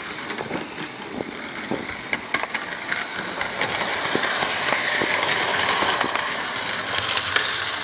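Model diesel locomotive running on analog DC without a sound decoder: the whir of its electric motor and gears as it rolls along the track, with scattered small clicks. It grows louder about midway as it passes close, then eases off near the end.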